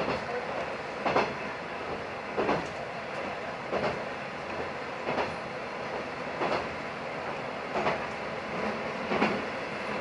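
JR West KiHa 120 diesel railcar running on jointed track. Its wheels clack over the rail joints about every 1.3 seconds over a steady running rumble.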